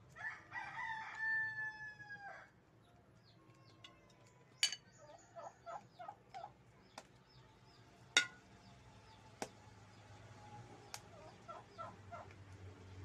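A rooster crows once, about two seconds long, near the start, followed by short clucking notes in two brief runs. A few sharp clicks sound in between, the loudest one just past the middle.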